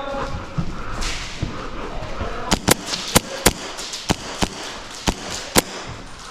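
Airsoft guns firing single shots: about eight sharp cracks, irregularly spaced, in the second half, over steady background noise.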